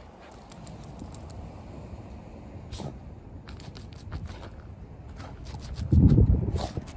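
Shiba Inu digging in loose dirt, its front paws scraping and scattering soil in quick, uneven strokes. A brief louder low rumble comes about six seconds in.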